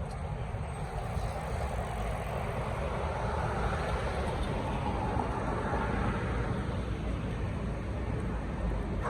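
Street traffic rumbling steadily, with a vehicle passing about midway.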